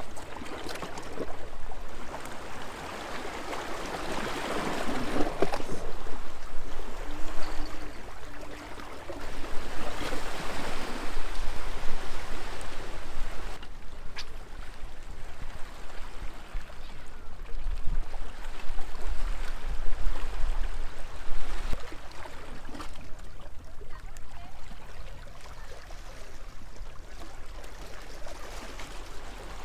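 Small sea waves washing and lapping against a stone seawall, swelling and easing in uneven surges every several seconds.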